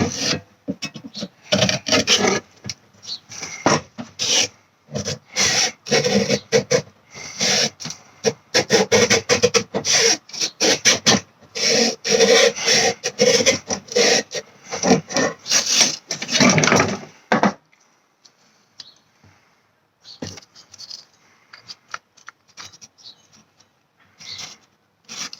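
A blade sawing and scraping into a Titleist golf ball's hard core in rapid, irregular strokes. The strokes stop about two-thirds of the way through, followed by a few faint knocks.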